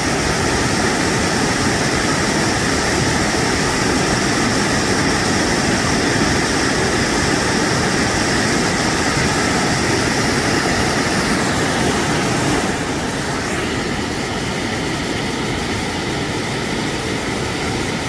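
Water from a small waterfall rushing and splashing over rock ledges close by, a steady dense rush that drops a little in level about thirteen seconds in.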